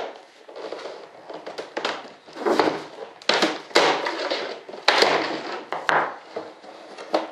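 A newly moulded RC jet wing being worked free of its mold by hand, with scraping, creaking and cracking as the part releases. It comes as a string of short, sharp bursts over low rubbing.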